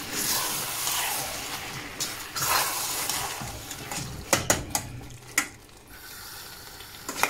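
Chicken keema and potatoes sizzling in oil in a stainless steel saucepan while a metal spoon stirs them. A few sharp knocks of the spoon against the pan come a little past halfway, and after that a low, steady sizzle.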